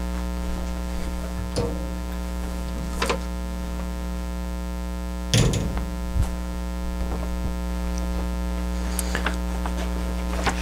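Steady electrical mains hum with a few scattered knocks, the loudest about halfway through. Paper rustles near the end as an instruction sheet is handled.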